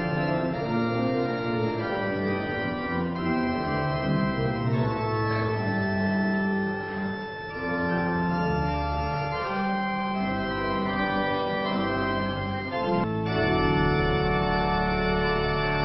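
Organ prelude in slow sustained chords, settling on a long held chord for the last few seconds.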